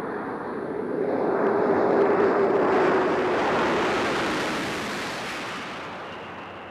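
Space Shuttle orbiter gliding in unpowered to land: a rushing air noise that swells over the first couple of seconds and then slowly fades, with a steady tone underneath through the middle.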